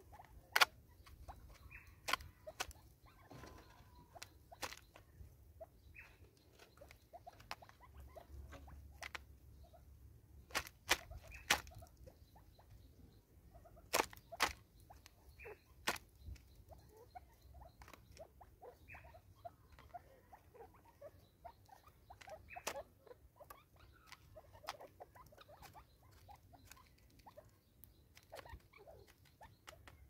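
Francolins pecking seed from a plastic bottle feeder on a wooden stump: irregular sharp taps and clicks, a few louder ones standing out, over a faint low rumble.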